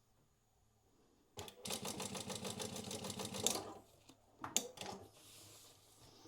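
Prosew PS-1903SX industrial walking foot sewing machine stitching fast and evenly for about two seconds as it sews out a programmed multi-segment pattern, then stopping. A couple of sharp clicks follow.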